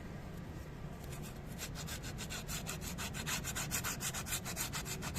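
Sandpaper rubbed by hand over a motorcycle drum-brake part to clean its surface. After about a second and a half it turns into quick, even back-and-forth rasping strokes that grow louder.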